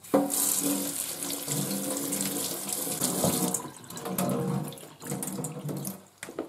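Kitchen tap running into a stainless steel sink, the stream splashing through a tea-towel bundle of sesame seeds held under it to soak them. The water hiss starts suddenly, is strongest for the first few seconds, and stops near the end.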